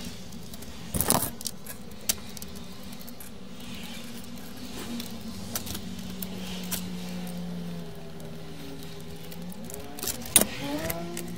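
Handling clatter of an opened CD player's plastic and metal chassis: scattered clicks, knocks and rattles as the tray mechanism, cables and case are moved and the unit is turned over, the loudest a sharp knock near the end. A steady low hum sits underneath, with a pitch rising near the end.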